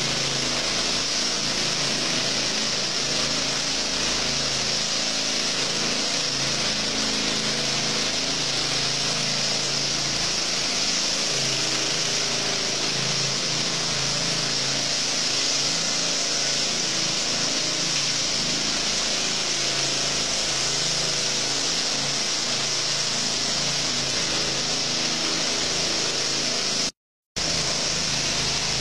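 Engine-driven walk-behind power trowel ('helicopter') running steadily as its rotating blades float fresh cement screed. The sound drops out for a moment near the end.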